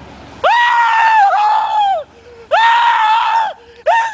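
A person screaming: long, high-pitched shrieks, two held screams of about a second and a half and a second, with a third starting near the end.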